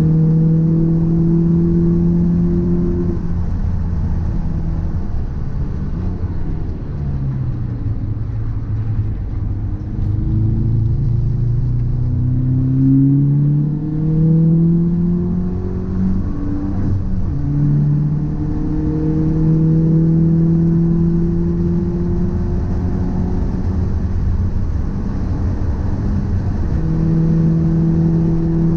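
Car on the move: a steady droning note with overtones whose pitch drops, climbs and levels off again as speed changes. The car has an abnormal noise and vibration that the owner suspects comes from a drive shaft or a wheel hub.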